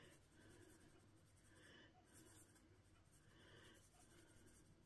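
Very faint, soft rustle of cinnamon sugar being shaken from a shaker can onto bread, coming in gentle repeated shakes.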